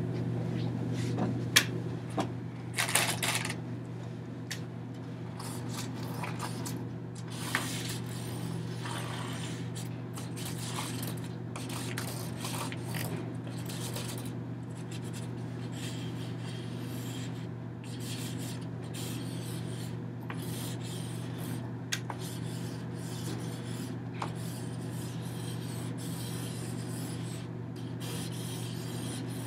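Hands handling a hanging lattice of wrapped strips: intermittent rubbing, rustling and light clicks, with a few sharp knocks in the first few seconds, over a low steady hum.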